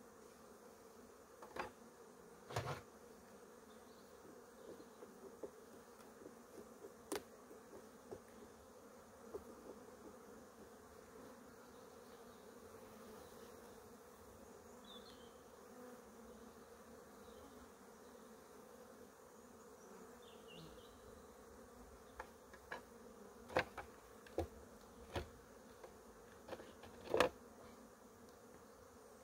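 Honeybees buzzing around an open hive in a faint, steady hum. Scattered sharp clicks and knocks come through it, a few early and a cluster near the end.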